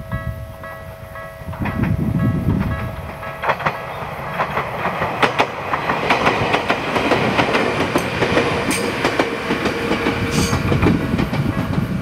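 An Ueda Electric Railway Bessho Line electric train running over a level crossing, its wheels clacking over the rail joints with many sharp clicks, loudest from about a few seconds in. The crossing's warning bell rings faintly under the train noise at the start.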